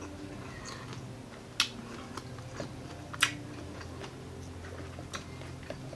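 Close-miked mouth clicks and smacks of a person eating, with three sharper clicks about a second and a half apart and softer ticks between them.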